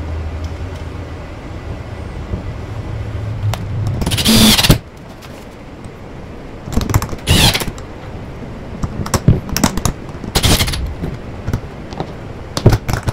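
Cordless RIDGID drill-driver driving screws. The motor runs steadily and builds for about four seconds, ending in a loud rattling burst as the screw seats. Two shorter bursts follow, about three seconds apart, with small handling clicks between them.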